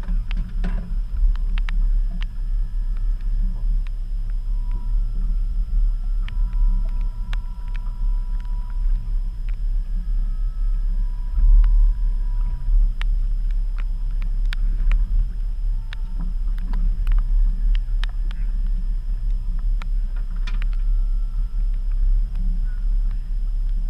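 Steady low rumble of a small fishing boat at sea, with scattered sharp knocks and clunks of gear and the catch being handled on the aluminium deck.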